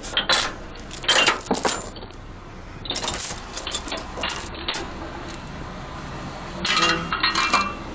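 Irregular metallic clinks and rattles, with a cluster of them near the end.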